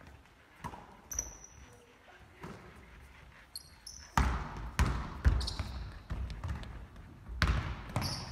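A basketball bouncing and being caught on an indoor court, with sneakers squeaking on the floor. A few scattered thuds come first; the loudest bounces come in a cluster about four to five and a half seconds in and again near the end.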